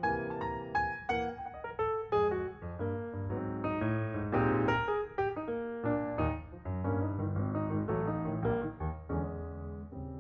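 Background piano music: a gentle melody of single notes and chords, each note struck and dying away.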